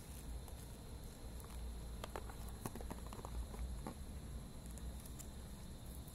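Handling noise of packaging: scattered light taps and clicks of plastic-wrapped bottle and small cardboard boxes being picked up and moved, most of them in the middle, over a low rumble of the phone being handled.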